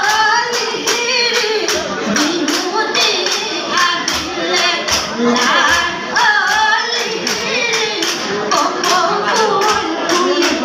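Women's group singing a Jeng Bihu song, with gliding melodic lines, over a steady beat of sharp claps or clapper strikes at about three a second.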